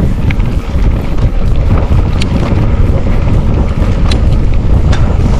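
Wind buffeting the microphone of a camera riding along on a moving bicycle: a loud, steady low rumble, with a few sharp clicks.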